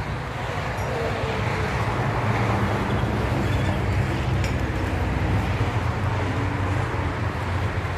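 Steady outdoor background noise with a low rumble and no clear single event.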